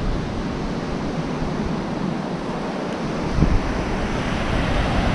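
Ocean surf breaking on a sandy beach, a steady wash of noise, with wind on the microphone and a brief low thump a little over three seconds in.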